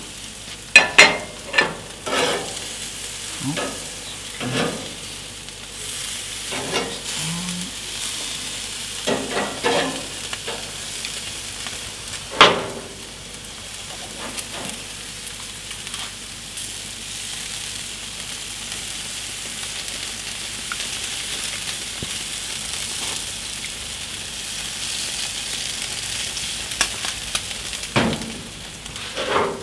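Meat sizzling steadily on the grates of a gas grill. Metal tongs click and clack against the grates again and again over the first dozen seconds as the pieces are turned, the loudest clack about twelve seconds in, with a couple more clacks near the end.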